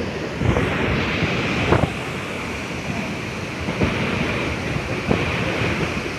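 Muddy floodwater rushing and churning in a steady, loud wash of noise, with wind buffeting the microphone in a few brief thumps.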